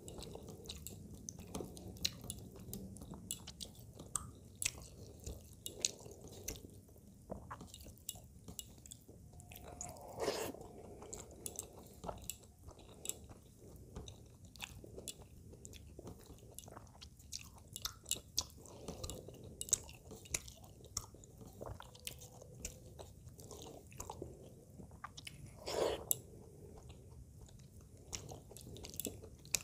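Close-miked chewing and wet mouth sounds of a person eating rice and fish curry, with many scattered short clicks. Two of them are louder, about ten seconds in and again near the end.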